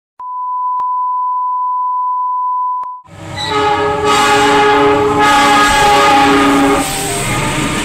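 A steady 1 kHz test tone for about three seconds. It cuts off, and a diesel locomotive's multi-tone horn sounds over the rumble of a passing train.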